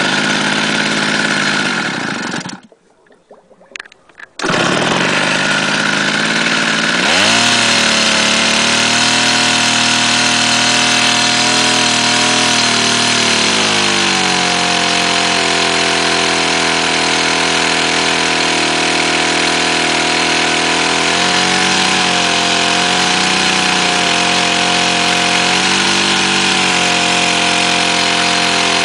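An engine running, which the uploader blames on a bad bearing and a crankshaft rusted after water got into the engine. It stops a few seconds in, starts again about two seconds later and revs up, then drops to a lower steady idle about halfway through, with brief wavers in speed near the end.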